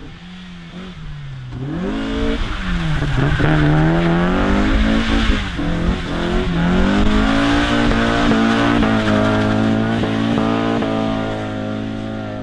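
A car engine revving hard and held at high revs while the tyres spin and squeal on a wet road: a car doing skids round a hairpin. The revs swoop up and down about two seconds in, hold high through the middle, and fall away near the end.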